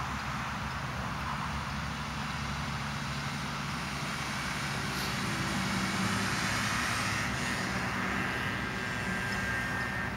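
Truck driving past on a road: a steady engine drone over road noise, swelling to its loudest about six seconds in.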